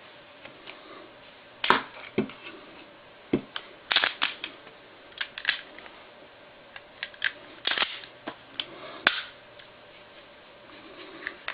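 Glock 26 pistol being worked by hand for a field strip: a series of sharp metallic clicks and clacks from the slide and controls, irregularly spaced, the loudest about two seconds in and about nine seconds in.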